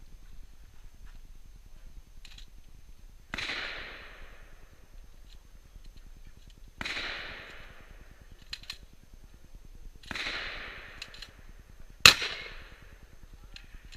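Shotgun fired four times, a few seconds apart, each shot trailing off in a short echo; the fourth, near the end, is much louder and sharper than the others. Faint clicks sound between the shots.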